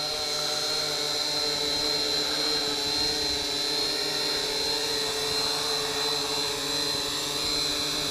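SJRC S70W quadcopter's brushed motors and propellers running in a steady whine, with a high steady tone above it, as the drone descends under automatic landing.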